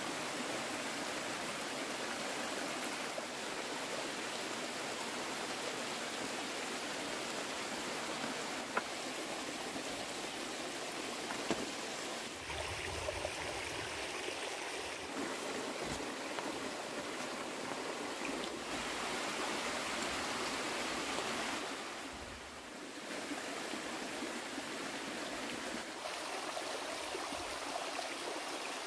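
Steady rushing water noise, easing briefly about three-quarters of the way through, with a few faint clicks.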